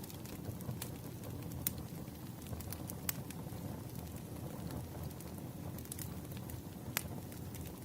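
Campfire burning: a steady low rumble of flames with scattered sharp crackles and pops from the wood.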